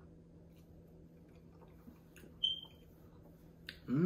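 A toddler being fed with a plastic fork: faint clicks and small eating sounds over a steady low hum. A sharp tick and a brief high squeak come about two and a half seconds in, and a voice starts at the very end.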